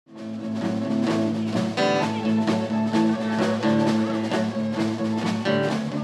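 Blues-band music with guitar and drums, starting abruptly at the beginning.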